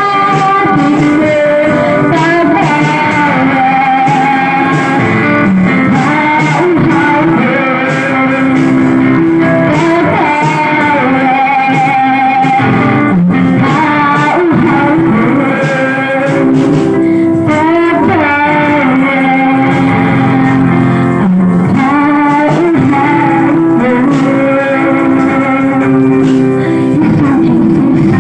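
Worship song sung by women into microphones through a PA, over instrumental accompaniment.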